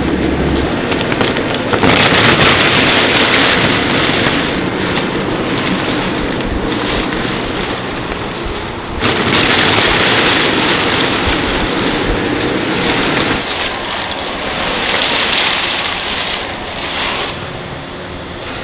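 Thin, dry baked crackers clattering and rustling in a dense rush as they tumble along a conveyor and pour off a machine, over the steady running of factory machinery. The sound changes abruptly about halfway through and surges again several times.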